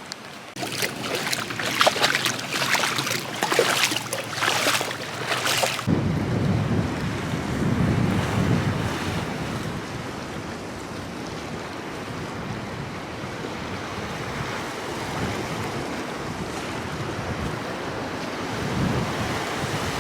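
Wind buffeting the microphone over the wash of ocean surf. The first six seconds carry a harsher crackling noise, then it turns to a low, steady rumble.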